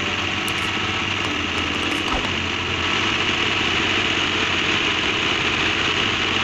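Massey Ferguson 385 tractor's diesel engine running steadily while it drives the hydraulics that tip a loaded trailer bed up to dump soil.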